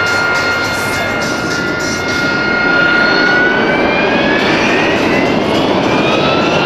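AV-8B Harrier II jump jet's Rolls-Royce Pegasus turbofan running loud: a high whine over a broad rush of jet noise. A little over two seconds in, the whine begins climbing in pitch.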